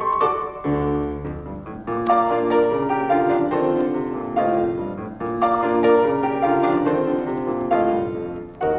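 Piano music playing notes and chords, with a deep bass chord struck about a second in.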